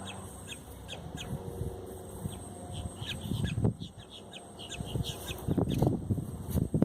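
Gusts of wind buffeting the microphone, swelling twice in the second half, while small birds chirp repeatedly in the background.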